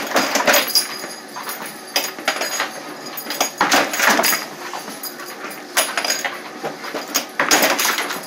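Home treadmill with a dog toy knocking and tumbling on its moving belt, and a German Shepherd scuffling at the end of the machine: a series of irregular knocks and scrapes.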